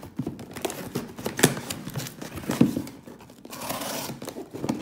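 Packing tape on a cardboard box being slit open with a blade: tape tearing and cardboard scraping and crinkling, with a few sharp snaps, the loudest about one and a half and two and a half seconds in.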